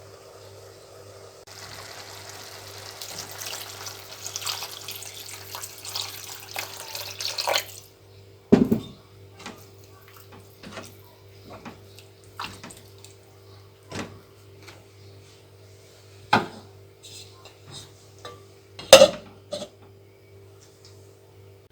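Kitchen sounds while cooking: about six seconds of rushing, water-like noise that grows louder, then scattered sharp clinks and knocks of utensils against dishes and pans, the loudest near the middle and about two thirds of the way through.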